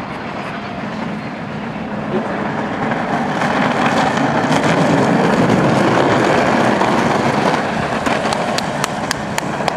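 Unpowered racing buggy's small hard wheels rolling fast over rough, cracked asphalt: a rumbling noise that grows louder as it passes close, peaks a few seconds in and then eases. A quick series of sharp clicks near the end.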